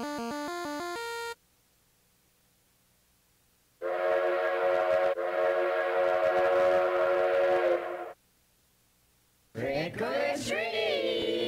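Three separate stock sound effects: a quick run of electronic tones about a second long, then a steady horn chord of several held notes over hiss for about four seconds, then a shorter sound whose pitches swoop and bend.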